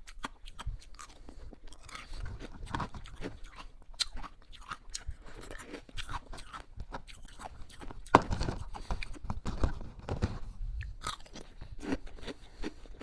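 Hard ice being bitten and chewed, close up: a run of sharp crunches and cracks, densest and loudest about eight seconds in.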